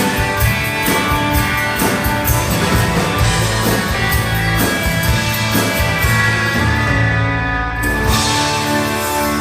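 Live rock band playing the song's instrumental outro, electric guitars over a steady drum beat, which stops about seven seconds in; near the end a cymbal crash and a held final chord ring out.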